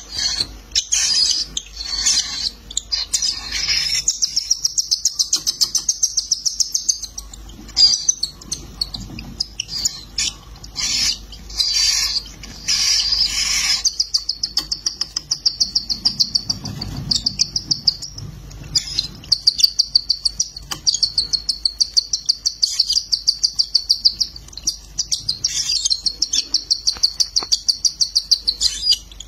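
Cockatiel chicks begging as a parent feeds them beak to beak: a steady run of high-pitched chirps repeating several times a second, with a few short pauses.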